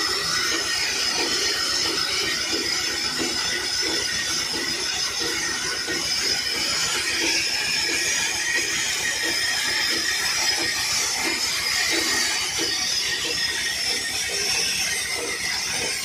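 Horizontal band sawmill cutting lengthwise through a log, running steadily and loudly.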